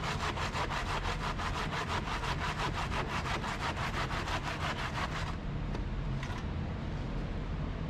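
A handsaw cutting through a lightweight composite ICCF building block in rapid, even rasping strokes that stop about five seconds in. A low steady hum runs underneath.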